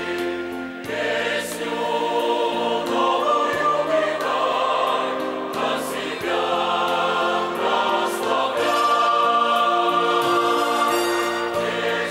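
Mixed church choir of men's and women's voices singing a hymn in held, changing chords.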